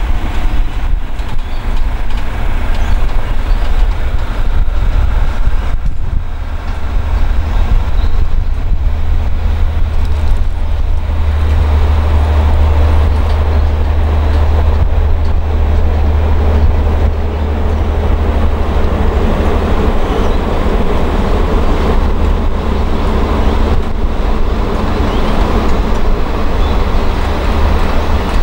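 The Ghan's passenger carriages rolling slowly past on the track, a steady loud rumble of wheels and bogies that grows heavier about halfway through.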